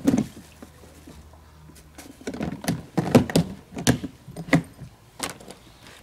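A single thump, then a quiet pause, then a run of irregular clattering knocks and clicks, like hard objects being handled and set down.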